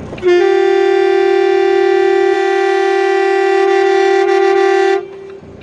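Truck air horn sounding one loud, steady blast of about four and a half seconds at a single pitch, which then cuts off.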